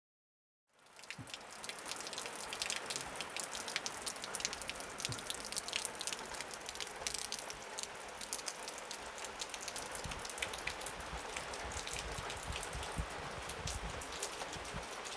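Pouring rain: a steady hiss of rainfall with many sharp taps of drops striking close by. It fades in within the first second.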